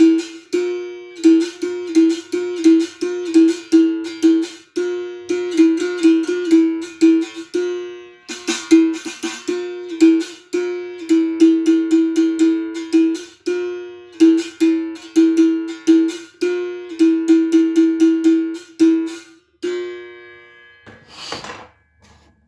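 Gunga berimbau, a steel-wire musical bow with a gourd resonator, struck with a stick in quick rhythmic strokes, played to test how its sound has turned out. The playing stops about 20 seconds in on a held note, followed by a brief rustle near the end.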